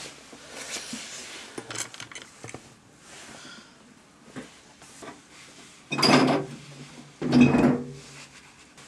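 Handling sounds: small clicks and knocks of objects being picked up and set down on a desk, then two louder, noisy rustling bursts about six and seven seconds in.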